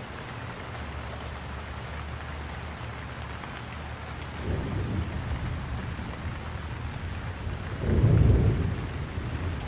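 Steady rain falling, with low rumbles of thunder: one rolling in about halfway through and a louder one near the end.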